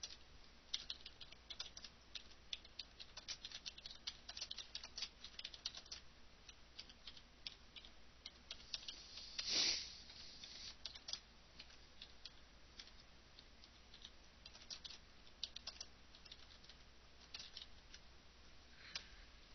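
Faint clicking of a computer keyboard being typed on in irregular runs of keystrokes, with one brief louder rush of noise about halfway through.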